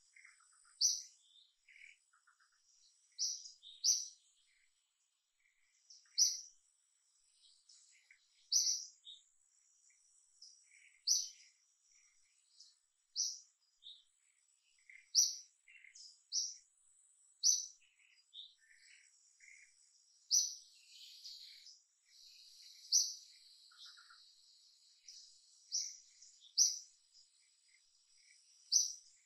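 Forest ambience of birds chirping: short, sharp high chirps repeated every second or two, over a thin steady high insect whine that swells into a buzz for a few seconds past the middle.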